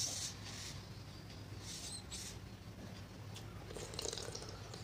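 A person slurping soupy seblak broth from a spoon: a few short sips, about two seconds apart, over a steady low hum.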